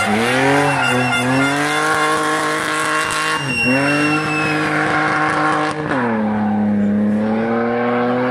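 BMW 3 Series saloon rally car accelerating hard out of a hairpin, the engine note climbing and dropping back at gear changes near the start, about three and a half seconds in and about six seconds in, then holding steady as it pulls away.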